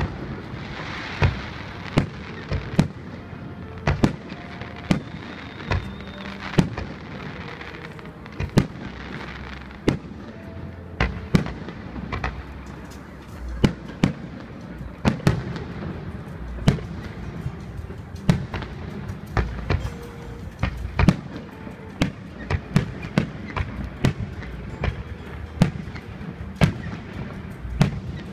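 Fireworks display: aerial shells bursting one after another in sharp bangs, more than one a second at uneven intervals, over a continuous low rumble.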